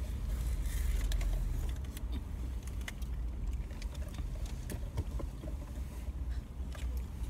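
Steady low rumble inside a car cabin, with scattered small crinkles and clicks of fast-food wrappers and packaging being handled.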